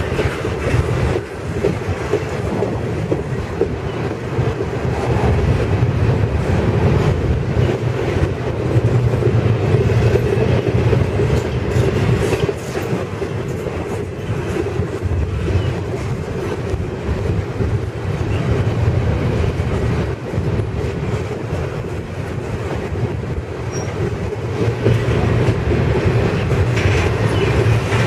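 Double-stack container well cars of a freight train rolling past: a steady rumble of steel wheels on the rails with clicking as the wheels pass over rail joints.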